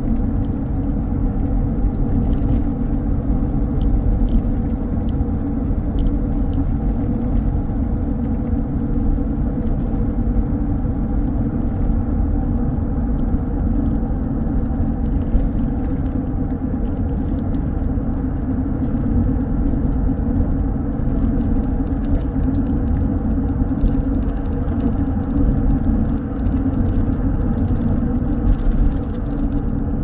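Steady rumble of road and engine noise inside the cabin of a moving car.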